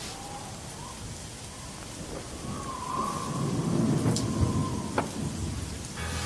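Thunderstorm ambience: steady rain with a rumble of thunder swelling about three seconds in, and a couple of sharp cracks.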